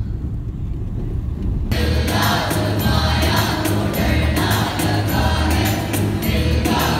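Low car-cabin road rumble, cut off about two seconds in by a group of students singing together on stage, with music under them that has a steady low beat.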